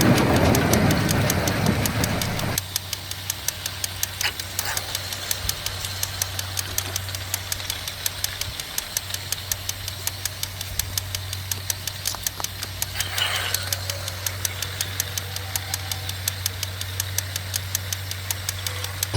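Small DC motor of a homemade toy train running with a steady low hum and regular clicking about three times a second. Background music cuts off about two and a half seconds in.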